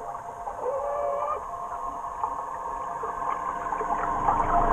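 Electric trolling motor heard underwater, giving a steady whine made of several constant tones. A short held higher tone starts about half a second in and lasts just under a second. Crackling water noise builds and grows louder near the end.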